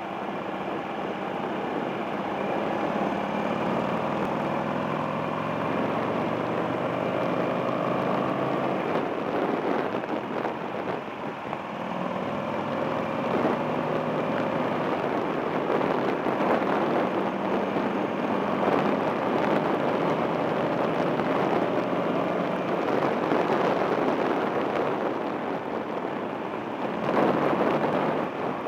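Buell XB9SX's air-cooled V-twin engine running on the move, its pitch climbing and dropping several times as the bike accelerates and backs off, with wind and road noise over it. A louder rush of wind near the end.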